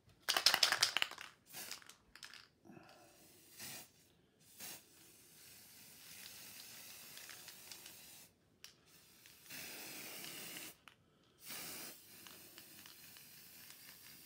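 Aerosol spray paint can spraying a light dusting of paint over a stencil, in short hissing bursts and a few longer steady sprays.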